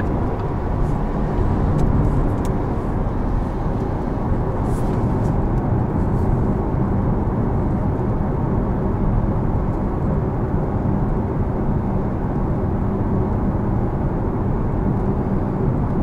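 Steady road noise of a Porsche Taycan Turbo S cruising at a constant speed: an even rumble of tyres and wind with no engine note, the car being electric.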